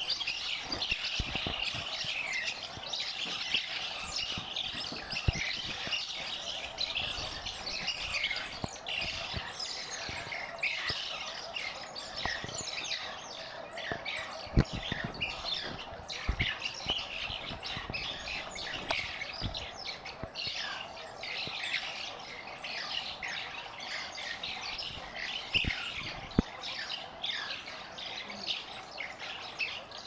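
A pack of banded mongooses chattering: a dense, constant stream of quick high-pitched twittering chirps from many animals at once, the calls of a group mobbing a snake. A few sharp knocks stand out, one about halfway through and one near the end.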